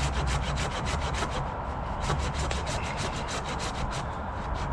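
Folding pruning saw cutting a notch into a fallen, moss-covered tree trunk, sawing with quick, even back-and-forth strokes.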